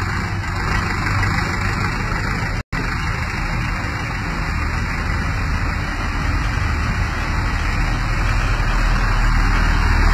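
Kartar 4x4 tractor's diesel engine running steadily as the tractor drives closer, getting a little louder toward the end. The sound cuts out for a split second about two and a half seconds in.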